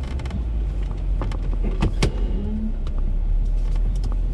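Jeep crawling off-road: steady low engine and drivetrain rumble, with a few sharp knocks and rattles from the body and suspension, the loudest about two seconds in.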